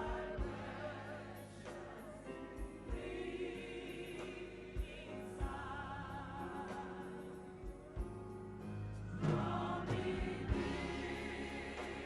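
Gospel choir singing with organ or keyboard accompaniment and a beat of low drum thumps.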